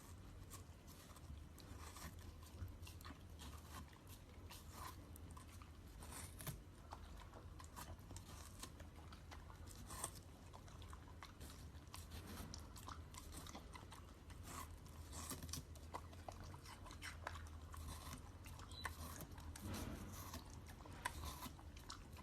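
Faint crunchy chewing: irregular small crunches and clicks over a steady low hum.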